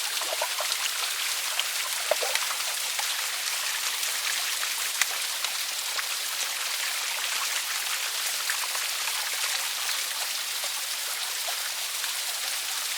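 Running water at a small waterfall: a steady splashing hiss with many small drips and splashes throughout.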